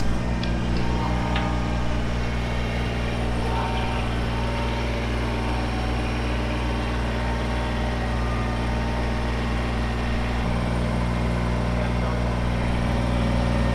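Kubota BX23S compact tractor's three-cylinder diesel engine running steadily. There is a short knock right at the start, and the engine note shifts about ten seconds in.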